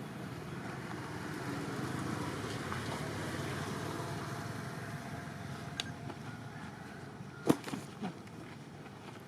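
Steady outdoor background noise like distant road traffic, swelling slightly a couple of seconds in and then easing. A few short sharp knocks come near the end.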